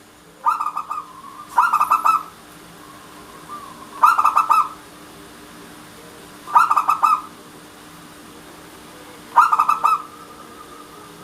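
Zebra dove (perkutut) singing: five short phrases of rapid, pulsing coos, each about half a second long, repeated every two to three seconds.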